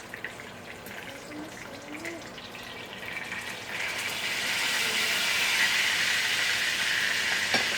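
Water running steadily from a kitchen tap. It starts about four seconds in, after a quieter stretch, and keeps going.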